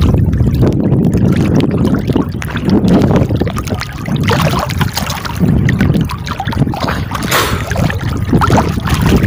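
Choppy seawater sloshing and lapping around a camera held right at the surface, with wind buffeting the microphone and a louder splash about seven seconds in.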